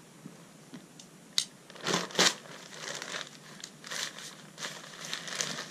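Bag of soil conditioner crinkling and rustling as it is gripped and opened by hand, with a couple of louder crinkles about two seconds in.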